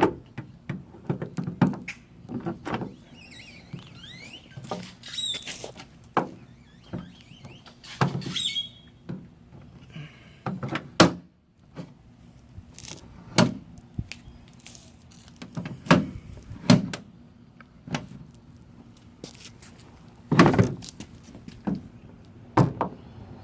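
Irregular clunks and knocks of parts and a container being handled, with a few short squeaks, and a loud double clunk near the end.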